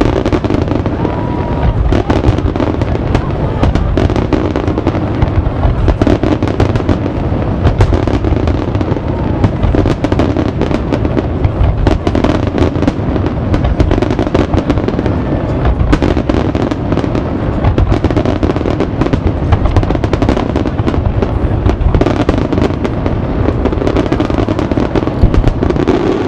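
Dense barrage of aerial firework shells bursting in quick succession, many booms and crackles overlapping without a break.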